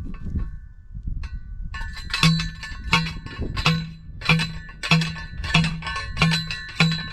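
A steel T-post being driven into the ground with a manual post driver. After a few light clinks, a ringing metal clang starts about two seconds in and repeats evenly about every two-thirds of a second, around eight strikes in all.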